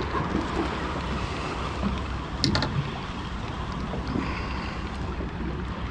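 Steady wind buffeting the microphone over water lapping against a small boat's hull, with a short cluster of sharp clicks about two and a half seconds in.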